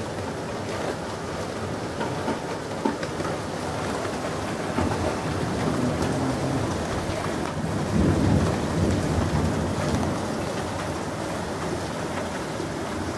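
Rain falling steadily on yard surfaces, with a long, low rumble of thunder that builds from about five seconds in, is loudest around eight seconds, then dies away.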